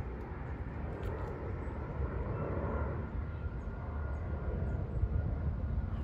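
Wind rumbling on the microphone over open-air background noise, with a faint thin steady whine for a few seconds in the middle.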